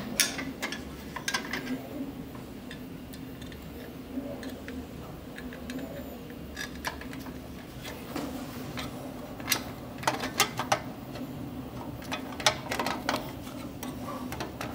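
Small metal clicks and taps of screws and an Allen key against the sheet-metal heat shield of a Kaleido coffee roaster as the screws are fitted. The clicks come in clusters, a few near the start and a busier run in the last few seconds, over a steady low hum.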